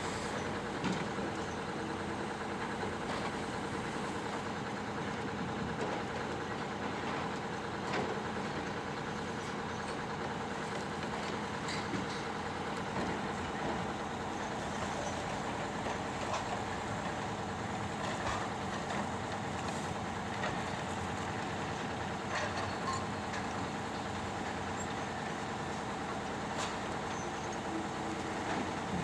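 Heavy machine's engine running steadily, with scattered short clicks and knocks.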